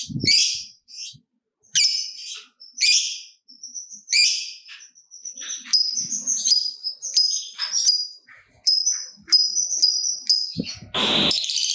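Lovebird giving short, shrill chirps and squawks, spaced about a second apart at first and then coming faster as a run of high, piercing notes. Near the end there is a brief, loud burst of noise.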